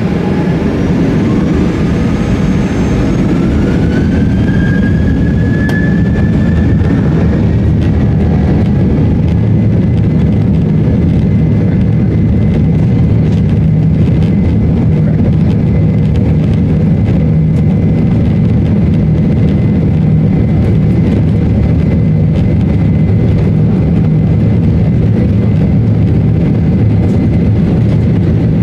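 Boeing 737-900ER's CFM56 jet engines spooling up for takeoff, heard from inside the cabin: a whine rises over the first few seconds, then the engines run steadily at takeoff power with a heavy low rumble as the airliner accelerates down the runway.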